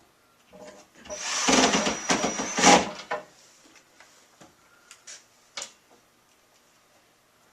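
Power drill driving a screw to fasten a cabinet drawer track, running for about two seconds with a steady high whine, followed by a few light clicks and knocks.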